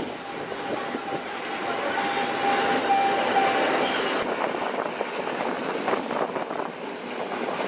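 Passenger train running along the line, heard from inside the carriage as a steady rattling rumble, with a faint wheel squeal in the middle.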